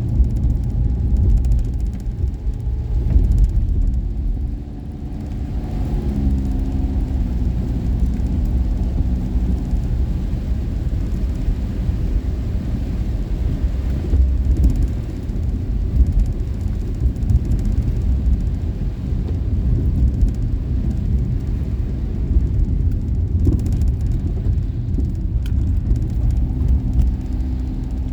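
Daihatsu Esse kei car driving: steady low engine and road rumble, with the engine's hum coming up more clearly about six seconds in and again near the end.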